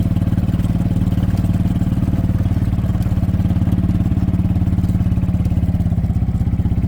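An engine running steadily, a loud, low, even throb with a fast regular pulse and no change in speed.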